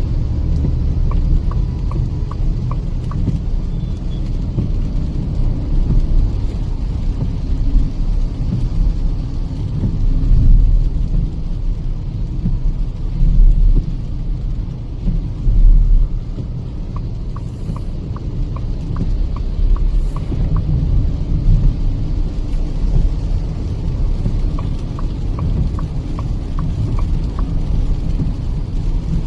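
Cabin noise of a Kia Seltos petrol manual driving on a wet highway: a steady low rumble of engine and tyres with the hiss of wet road. Three short runs of light, evenly spaced ticking come and go: once near the start, again past the middle, and again near the end.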